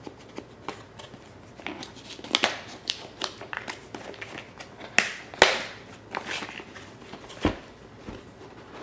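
A smartphone box being opened and its packaging handled: scattered clicks, taps and short rustling scrapes of cardboard and plastic. The sharpest are two snaps about five seconds in, and a duller knock comes a couple of seconds later.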